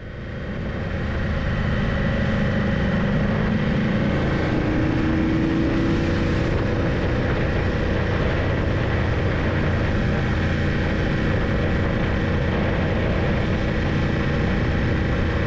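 Motorcycle engine running steadily at road speed with wind and road noise, heard from a camera on the windscreen. It fades in over the first second or two.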